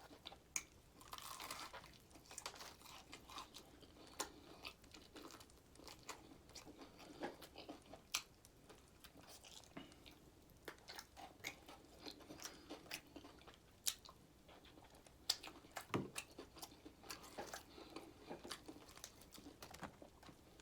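A person chewing crunchy fried food close to the microphone: a long run of small, irregular crunches and bites.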